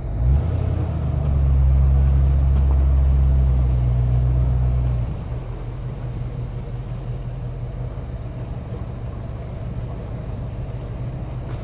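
Low, steady vehicle engine rumble, loud for about the first five seconds, then easing to a lower, rougher drone, with wind on the microphone.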